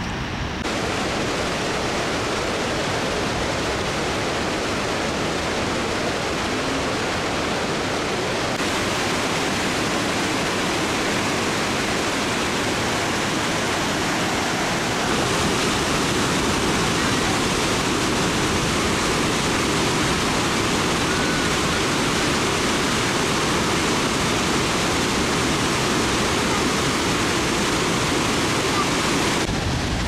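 The steady, loud rush of a large waterfall: the Caroní River pouring over the La Llovizna falls.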